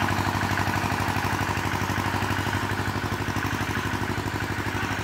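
An engine running steadily at an even idle, with a fast, regular throb.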